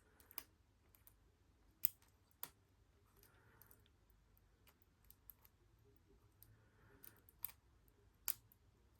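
Faint, scattered sharp metallic clicks of a lock pick working the pin stack inside a Squire LN4 padlock under a tension wrench, as the pins are lifted and drop back. The picker suspects he is putting too much tension on the lock.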